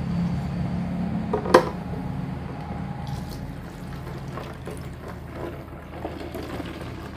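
Homemade cleaning liquid pouring from a plastic bottle through a plastic funnel into a plastic bottle as it fills, with a single sharp knock about a second and a half in.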